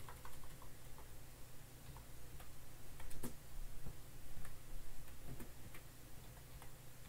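Typing on a computer keyboard: quiet, irregular key clicks, a few a second, over a low steady hum.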